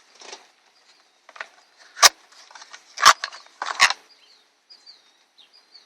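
Handling noise as the new coolant temperature sensor is shown: three sharp clicks with light rustling between them. Faint bird chirps come in near the end.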